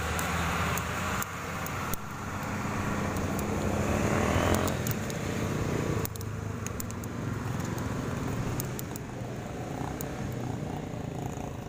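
Road traffic: a motor vehicle's engine running, growing louder over the first few seconds and then falling off sharply about six seconds in, with scattered light clicks.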